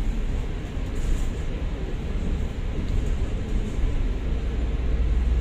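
Volvo B9TL double-decker bus in motion, heard from the upper deck: its Volvo D9A six-cylinder diesel and Voith DIWA automatic gearbox give a steady low rumble that grows stronger about four seconds in.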